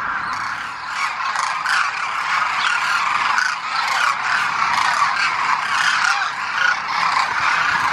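A large flock of demoiselle cranes calling together: a dense, unbroken chorus of many overlapping calls.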